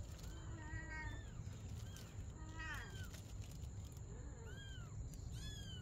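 Young kitten mewing repeatedly: about five short, high-pitched mews, each rising and falling in pitch.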